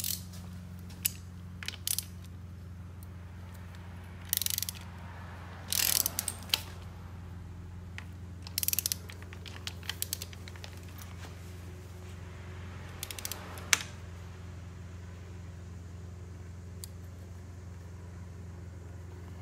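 A 14 mm ratchet clicking in several short bursts as it tightens the timing belt tensioner bolt on a Mitsubishi Evo 9's 4G63 engine. A steady low hum runs underneath.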